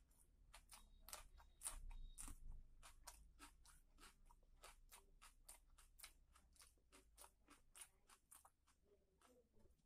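A person chewing food close to the microphone, with a steady run of crisp crunches and wet mouth clicks about four a second.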